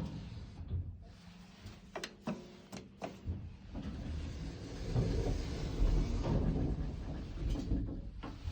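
Hitachi rope-type passenger elevator making abnormal mechanical noises: a run of sharp clicks and knocks about two to three seconds in, then an uneven low rumbling with louder jolts.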